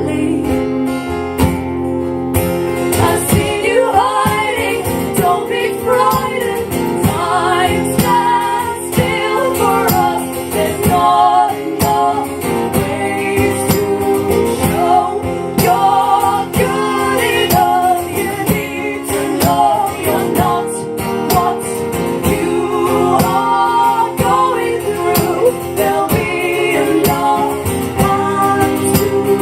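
Live acoustic folk-pop song: strummed acoustic guitar with women singing over it, the voices coming in a few seconds in.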